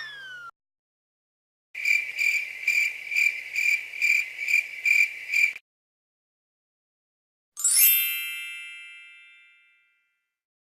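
Meme sound effects: the tail of a boing, then a cricket-chirping effect, an even series of high chirps about three a second lasting about four seconds. A single bright ding follows and rings out, fading over about two seconds.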